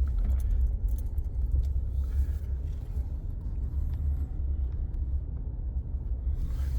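Steady low rumble of a vehicle driving, engine and road noise.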